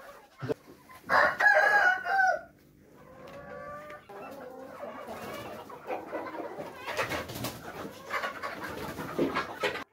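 A large flock of chickens clucking and calling, with one loud drawn-out crow from a rooster about a second in that falls in pitch at its end.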